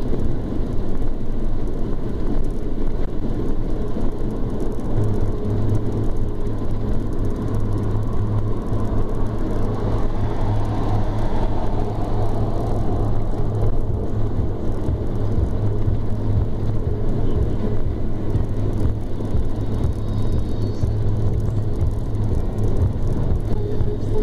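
Steady road noise of a car cruising on a motorway, heard from inside the cabin: engine and tyre drone with wind noise. A low hum strengthens about five seconds in.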